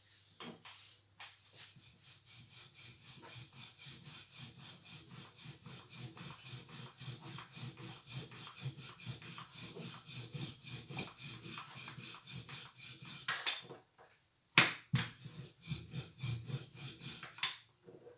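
A rolling pin working paratha dough on a wooden board: steady rhythmic rubbing, about four strokes a second, with a few sharp clinks about ten seconds in and several louder knocks near the end.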